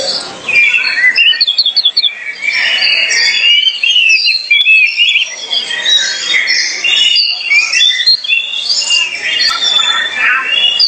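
Oriental magpie-robin singing loudly: a continuous, varied song of quick whistles and chirps, with a fast run of short repeated notes about a second and a half in.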